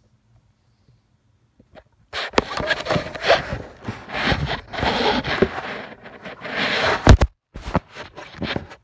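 Handling noise on a phone's microphone: loud rustling and scraping as the phone is moved and rubbed against clothing, with several sharp knocks, starting about two seconds in.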